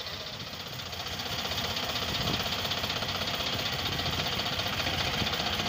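Sonalika DI 740 tractor's diesel engine running steadily with a rapid knocking beat while the tractor is stuck in deep mud.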